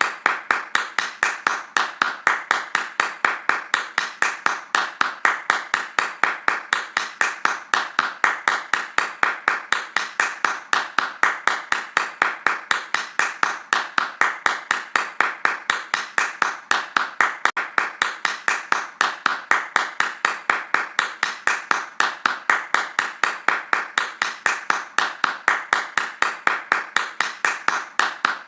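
Hands clapping fast in an even, unbroken rhythm, about four claps a second.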